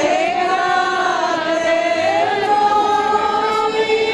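Procession crowd singing a religious hymn together, a slow melody in long held notes.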